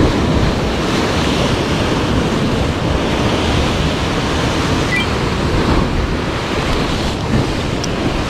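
Sea surf washing steadily at the shore, with wind noise on the microphone.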